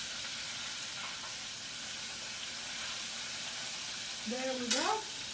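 Battered chicken wings deep-frying in hot oil, a steady sizzle. Near the end there is a brief voice and a sharp click.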